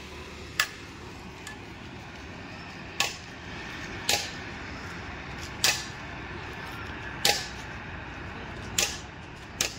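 About seven sharp knocks or snaps at uneven intervals of one to two seconds over a steady background hiss.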